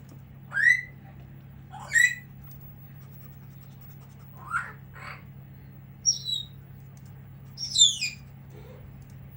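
Pet parrots calling: a series of short, rising squawks, about seven in all, the loudest near the start and near the end.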